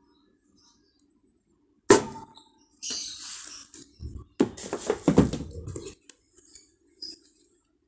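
A sharp knock about two seconds in, then a brief hiss and a run of clattering knocks and scrapes.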